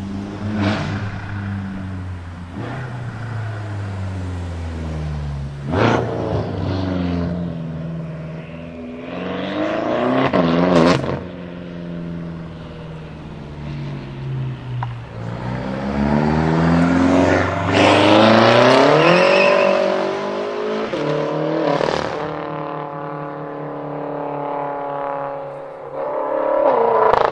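Tuned 800 hp BMW M5 F10 twin-turbo V8 on straight pipes, accelerating hard several times. The engine note climbs steeply and drops back at each upshift, with sharp cracks at some of the shifts.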